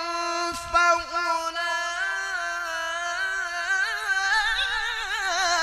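A man reciting the Qur'an in the melodic tilawah style, drawing out a single long note at the end of a phrase. The pitch wavers and climbs higher about four seconds in.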